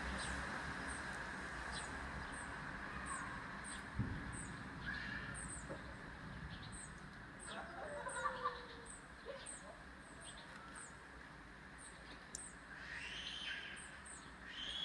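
Birds chirping outdoors: a high, thin chirp repeats steadily about once or twice a second, with other scattered calls among it. A single sharp knock sounds about four seconds in.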